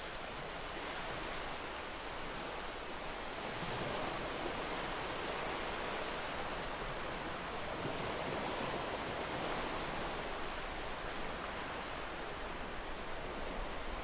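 Small ocean waves breaking and washing up a sandy beach: a steady surf noise that swells gently and eases as the waves come in.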